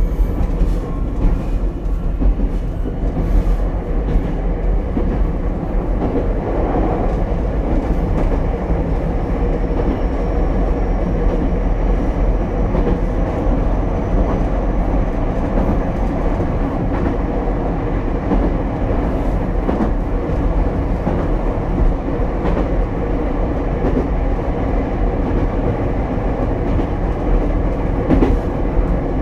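Ichibata Electric Railway 7000-series electric railcar running at speed, heard from inside the car: steady wheel-on-rail and running noise with occasional clicks over rail joints. A faint high whine rises slowly in the middle.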